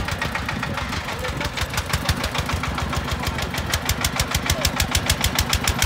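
Small single-cylinder diesel engine of a farm dump truck running with a rapid, even chugging knock, about seven beats a second.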